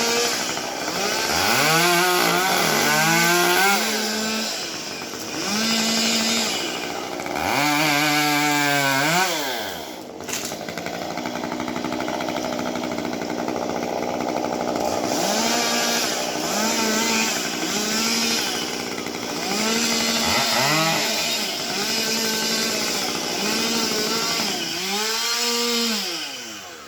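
Two-stroke chainsaw running, its engine revved up and let back down several times with a steady idle between the revs. It drops away near the end.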